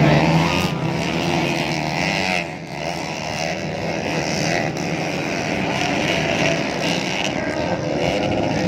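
Several motocross motorcycle engines running and revving, their pitch wavering up and down, with a brief dip in loudness about two and a half seconds in.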